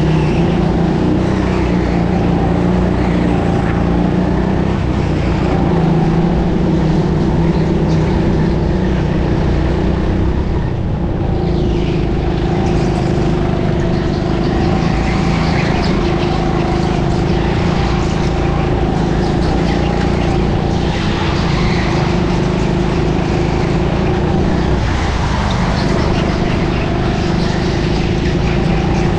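Go-kart engine running hard under the driver, a steady drone that dips briefly in pitch twice.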